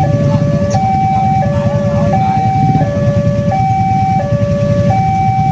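Railway level-crossing warning alarm sounding its alternating two-tone signal, a higher and a lower tone taking turns about every two thirds of a second, which warns that a train is approaching. A steady low rumble runs beneath it.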